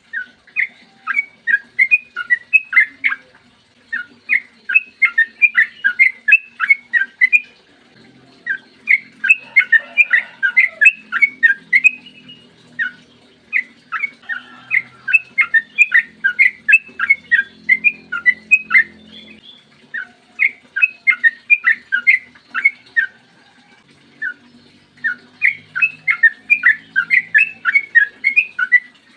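Yellow-vented bulbul (trucukan) singing long runs of rapid, bubbly whistled notes, the long rolling song that keepers call 'ropel panjang', with a few short pauses between runs.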